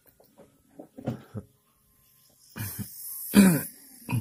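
A man coughing and clearing his throat: a few short, quiet throat sounds, then a louder cough about three and a half seconds in.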